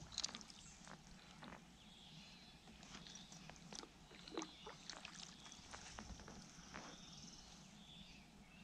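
Near silence with faint, short calls from a flock of waterfowl on a dock, and scattered soft clicks.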